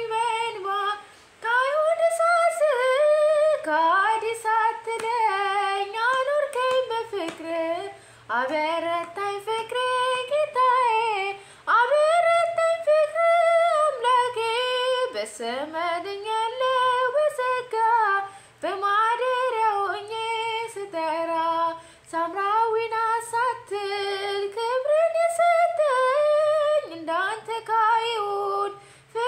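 A woman singing an Amharic Ethiopian Orthodox hymn (mezmur) solo and unaccompanied, in drawn-out, gliding phrases of a few seconds with brief breaths between them.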